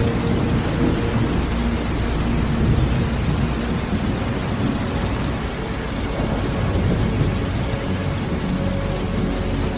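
Steady rain with a continuous low rumble of thunder under it.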